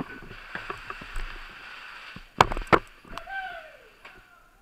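Rustling from the camera rubbing as its wearer moves, then two sharp, loud knocks about a third of a second apart and a short squeak falling in pitch.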